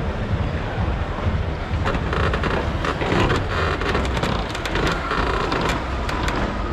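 Low rumble of a Jeep driving over an off-road demonstration course, with a run of crackling clicks from about two to six seconds in.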